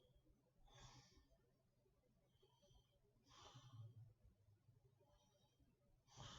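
A sleeping woman's faint, slow snoring breaths: three breaths roughly two and a half seconds apart, the middle one with a low snore.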